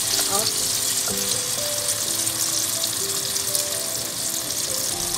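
Native chicken pieces frying in hot oil with garlic, onion and tomato: a steady sizzle, over background music with held notes.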